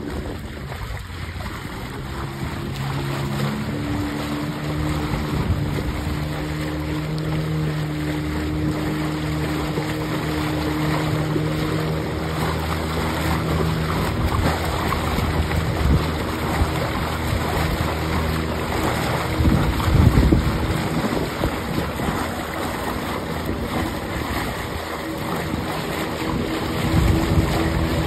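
Small motorboat's outboard engine running steadily, with water washing past the hull and wind buffeting the microphone, gusting hardest about two-thirds through and again near the end.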